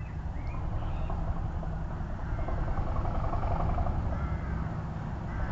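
Class 37 diesel locomotive's English Electric V12 engine running under power as it approaches, a deep steady rumble that grows louder about two seconds in.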